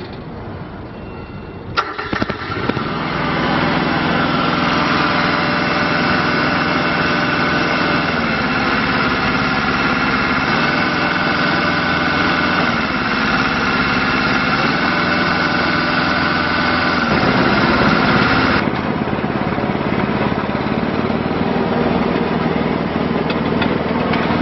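The IHI IS7GX mini excavator's diesel engine starts about two seconds in and then runs steadily, its pitch shifting a few times. A high whine that accompanies it stops about three-quarters of the way through while the engine keeps running.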